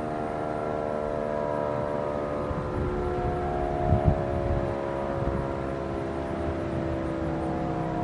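Model 5 mechanical outdoor warning siren winding down, its wail of several notes at once slowly falling in pitch and swelling about halfway through. A brief low thump about four seconds in.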